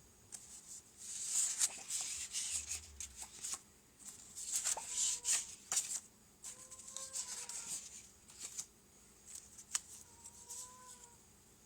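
Hands handling small plastic kit parts and packaging: irregular rustling and rubbing with scattered light clicks, and three faint short squeaks.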